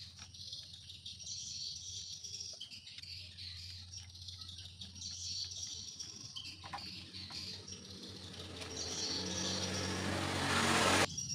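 Faint background chirping over a low steady hum; over the last few seconds a rising noise swells and cuts off suddenly.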